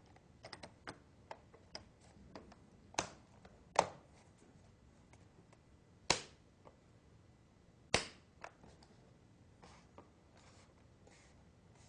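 Plastic center hinge cover of a Dell Vostro 1310 laptop being pressed and snapped into place along its length: a series of sharp plastic clicks, four of them louder, with lighter ticks in between.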